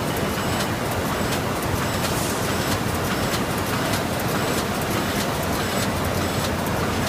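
DLG FMQF-1480 fully automatic high-speed flute laminator running at production speed: a steady mechanical rumble and whir with faint irregular ticks, over the background noise of an exhibition hall.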